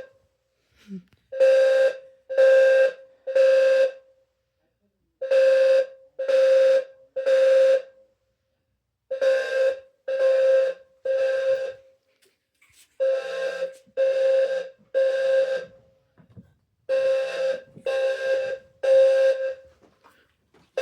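Low-frequency fire alarm sounders, one a Wheelock, sounding together on code 3 (temporal-three): a low, buzzy tone in rounds of three short blasts, then a pause, five rounds over and over.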